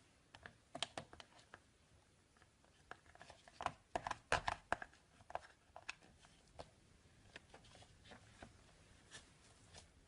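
Slime being squeezed and pressed by hand, giving irregular sticky clicks and pops that are busiest about four seconds in.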